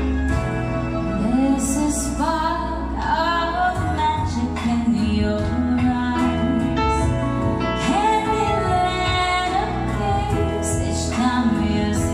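A woman singing into a microphone with live keyboard accompaniment, her voice coming in about a second in with long held notes.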